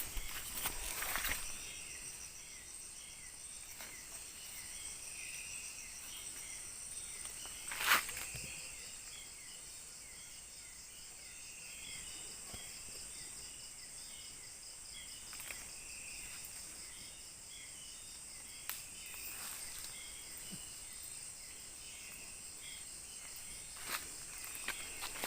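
Forest insects chirring steadily, a high trill layered with repeated short chirps. A single sharp knock comes about eight seconds in.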